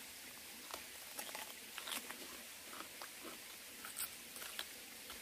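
Biting into and chewing a whole Korean melon (chamoe): faint, irregular small clicks of the bites and chewing.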